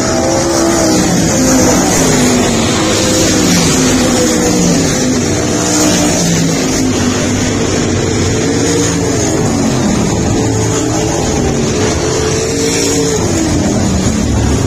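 Several race car engines running together, their notes rising and falling as the cars accelerate and back off around the track.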